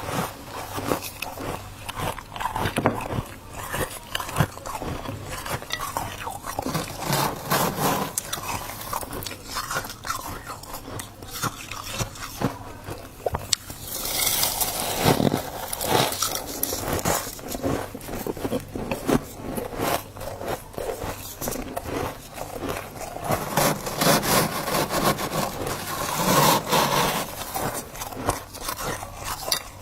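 A person biting and chewing dry freezer frost close to the microphone: dense, squeaky crunching, with some scraping of the frost.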